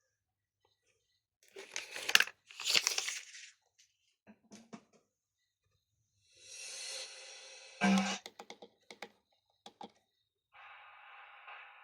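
A JVC KD-G351 car stereo being operated: sharp button clicks, two short bursts of crackling noise, and brief snatches of sound from the unit as it switches. A steady sound comes in near the end, just before music starts.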